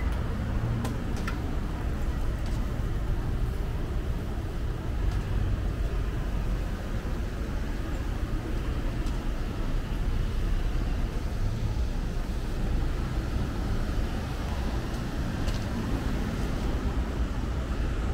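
Steady low rumble of city street traffic, with a few faint clicks scattered through it.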